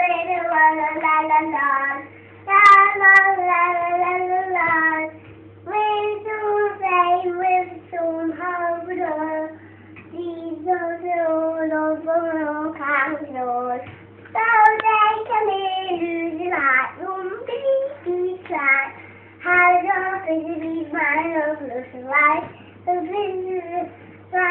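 A young girl singing unaccompanied, in sung phrases with short pauses between them.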